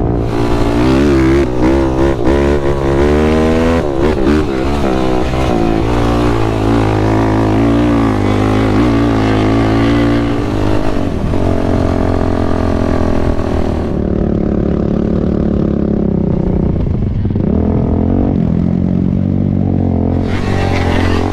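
Sport ATV engine revving up and down repeatedly as the quad is ridden, settling into steadier running in the second half.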